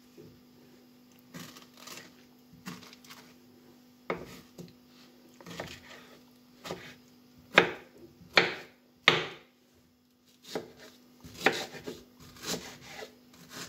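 Kitchen knife cutting peeled mango into pieces on a wooden cutting board: irregular knocks as the blade goes through the fruit onto the board, the loudest three in quick succession a little past the middle. A faint steady hum runs underneath.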